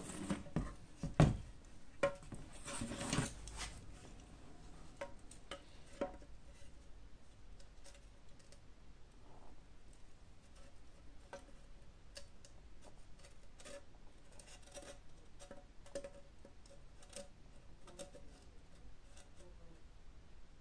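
A large metal caliper being handled against a headlight unit while measuring it: a few knocks and a short scrape in the first few seconds, then faint, scattered clicks of the caliper jaw sliding and touching the rim.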